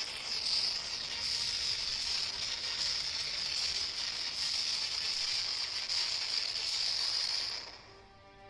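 A burning forest fire hissing and crackling steadily. It cuts off about a second before the end, and soft music with held notes comes in.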